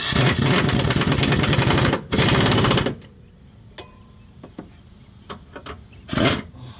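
Impact wrench hammering a suspension bolt in: one burst of about two seconds, a short break, then a second shorter burst. A few light clicks follow, and a brief burst comes near the end.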